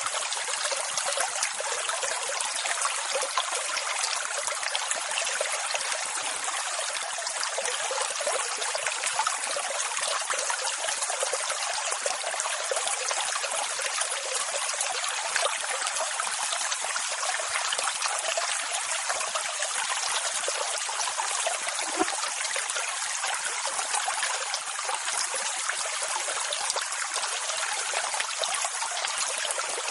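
Steady rushing water with a thin, hissing sound and no deep rumble. It holds an even level, with no rise and fall of single waves breaking.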